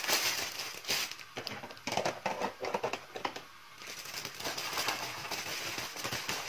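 Plastic instant-noodle packet crinkling and crackling as it is handled, with light knocks of plastic containers. A steadier hiss with small clicks takes over in the second half.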